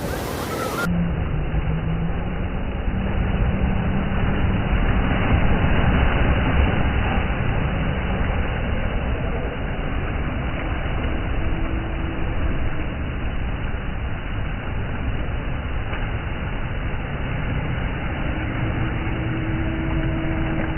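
Sea waves washing and splashing against a shore rock, swelling louder for a few seconds and easing off again, over a steady low engine hum.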